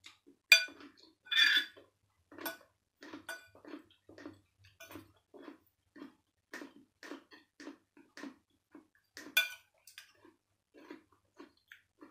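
Metal spoon and fork clinking and scraping against ceramic plates of food: a string of short taps and clicks, loudest about half a second and a second and a half in and again about nine seconds in.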